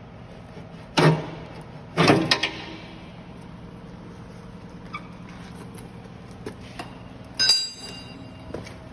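Wood-shavings compactor machine running with a steady low hum, with two loud knocks about one and two seconds in and a sharp metallic clank that rings briefly near the end.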